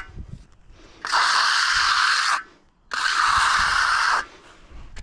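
Steel hand edging trowel scraping along the edge of setting concrete in long strokes, two strokes of about a second and a half each with a short pause between, as the slab edge is hand-finished.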